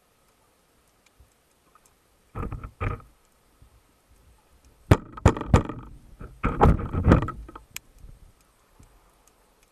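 Knocks, clicks and scraping heard underwater through a speargun-mounted camera's housing: a short cluster about two and a half seconds in, then a longer, louder run of sharp clicks and rubbing knocks from about five to nearly eight seconds.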